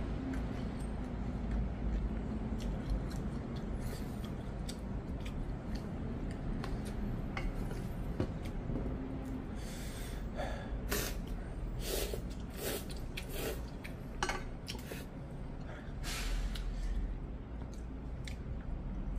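A person eating instant noodles with chopsticks: short sharp slurps and chewing, with a run of loud slurps from about halfway through.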